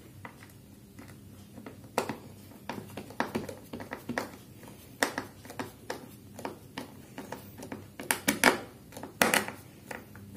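Screws being tightened by hand screwdriver into the plastic handle frame of an electric pressure washer: irregular small clicks, scrapes and knocks of the tool and hands on hard plastic, with a cluster of louder clicks near the end.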